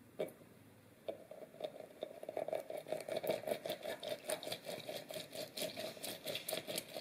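Lemon half twisted by hand on a reamer juicer, the rind rubbing against the ridges in quick rhythmic strokes several times a second. It starts about a second in, after a single click.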